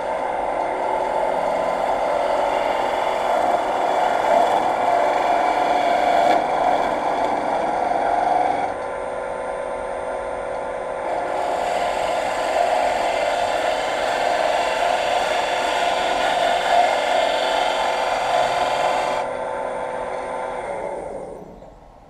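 Wood lathe running at about 1500 rpm while a half-inch bowl gouge cuts a bead in a spinning pine blank: a steady motor whine under the scraping of the cut. The cutting eases off for a couple of seconds about nine seconds in, then resumes, and the lathe winds down near the end.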